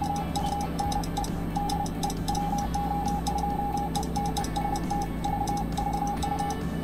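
Morse code being sent on the Icom IC-7610 transceiver: its CW sidetone, one steady beep keyed on and off in dots and dashes, while the Ameritron AL-1500 amplifier puts out about a kilowatt. Faint clicks go along with the keying over a low steady hum.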